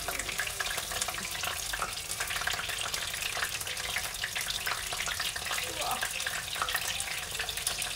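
Fish fillets shallow-frying in canola oil in a frying pan: a steady crackling sizzle of hot oil around the fish.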